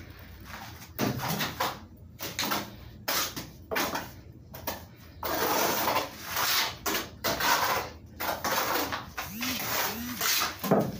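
Steel trowel scraping and smearing cement plaster across a concrete-block wall in a run of strokes, some short and some drawn out for about a second.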